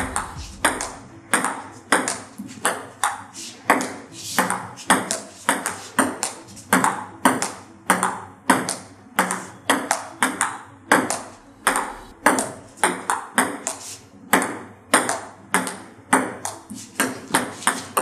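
Table tennis forehand rally: the ball clicking off the bats and bouncing on the table in a steady, even rhythm of about two to three hits a second.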